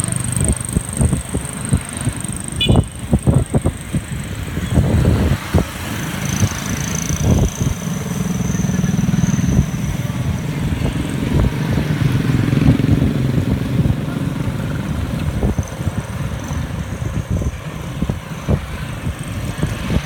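Road traffic heard from a moving bicycle: engines of motorcycles and a truck running past, loudest about a third of the way in, with wind buffeting the microphone in short thumps.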